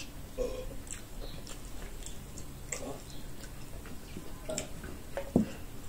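Soft, scattered mouth sounds of eating and drinking: small clicks and smacks of chewing and gulps from a soda can. One sharper knock comes near the end.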